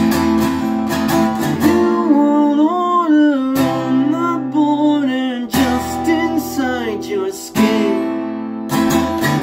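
Steel-string acoustic guitar strummed, with a new chord struck about every two seconds. Over the chords runs a wordless vocal melody that glides up and down.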